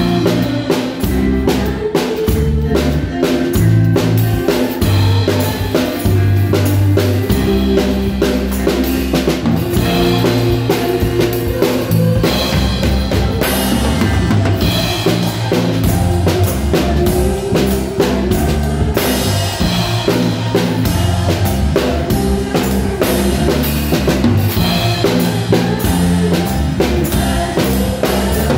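A live band playing with a drum kit close-up and loud, snare, rimshots and bass drum hitting a steady beat, over a bass guitar line.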